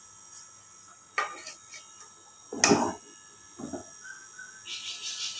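A ladle scraping and knocking against a metal cooking pot as chopped ridge gourd is stirred. There are a few separate clatters, the loudest about two and a half seconds in.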